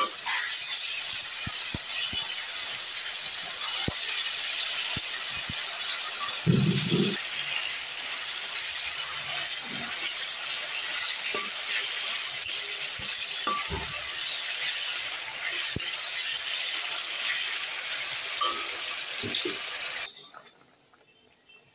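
Tomato chutney sizzling in an iron kadai with a steady hiss, while a metal spatula stirs and scrapes, giving scattered clinks and knocks against the pan. The sound drops away near the end.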